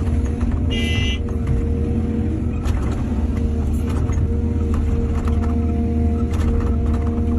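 Diesel engine of heavy earthmoving machinery running steadily, with scattered knocks and clanks and a brief high-pitched squeal about a second in.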